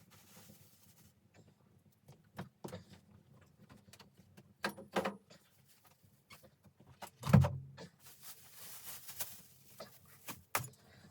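Scattered knocks and clicks of things being handled, with a heavy thump about seven seconds in, followed by a couple of seconds of rustling or scraping.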